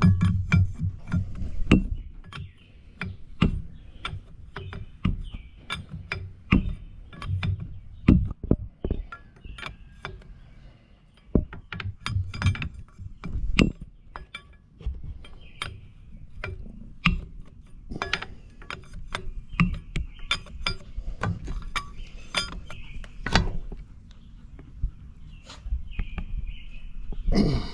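Wrench working a hydraulic hose fitting tight: irregular metal clicks, clinks and taps.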